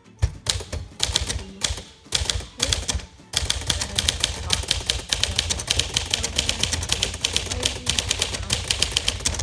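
1954 Smith Corona Silent Super manual typewriter being typed on fast: a rapid string of type-bar strikes, with short pauses in the first three seconds, then unbroken fast typing from about three seconds in.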